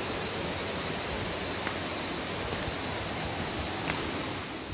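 Steady rush of a rocky mountain stream, with a thin high tone running faintly through it.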